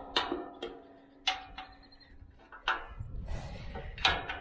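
Metal clanking: about five separate sharp knocks, some with a short ring, as a scrap steel plate is set under a trailer's kickstand.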